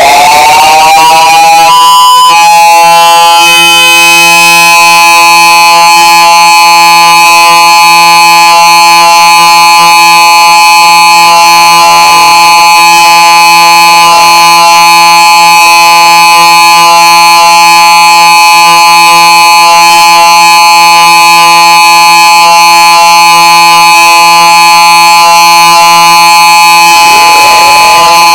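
Outdoor tornado warning siren sounding a steady tone under test. It finishes winding up to full pitch in the first couple of seconds, holds a loud, steady tone of several notes, and starts to wind down near the end.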